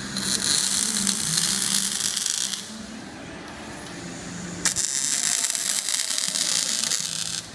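Robotic MIG welding arcs crackling and hissing in two stretches: one for about two and a half seconds at the start, another cutting in abruptly near the middle and stopping just before the end. A low steady hum runs underneath.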